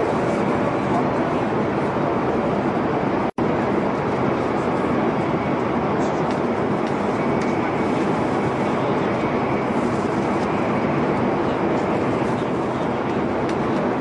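Steady running noise of a metro train, an even rumble without distinct events. The sound drops out for a split second about three seconds in.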